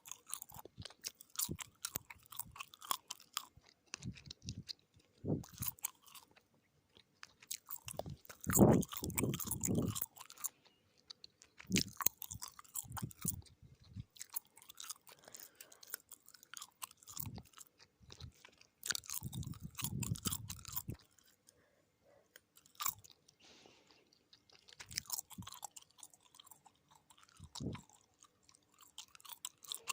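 Close-miked gum chewing: irregular wet smacks and clicks of a mouth working chewing gum, coming in clusters with short pauses, loudest in stretches about nine and twenty seconds in.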